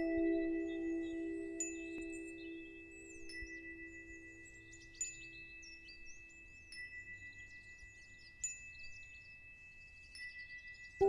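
Soft ambient background music: a held chord fades away over the first half, under a steady high tone and sparse, twinkling chime-like notes every second or two.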